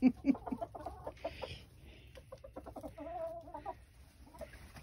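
Chickens clucking in short, rapid notes, then one longer, wavering call about three seconds in.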